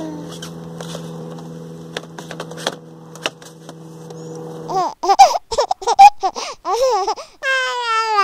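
A baby babbling in a run of loud rising and falling sounds over the second half, after a stretch of a steady low hum with a few light taps of hands on cardboard toy boxes. Near the end comes one long falling tone.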